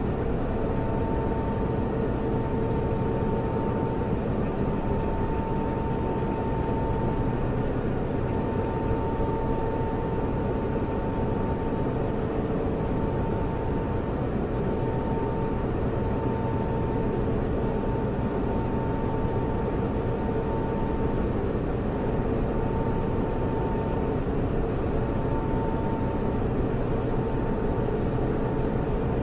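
Computer server running: the steady whir and rush of its cooling fans, with a faint steady hum and a higher tone that now and then drops out.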